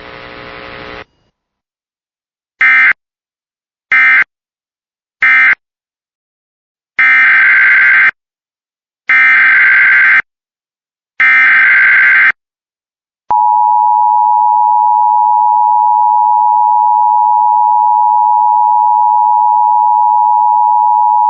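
Emergency Alert System signalling: three short data bursts, the end-of-message code that closes the previous alert, then three longer data bursts of about a second each, the SAME header of the next alert. A steady attention-signal tone starts about 13 seconds in.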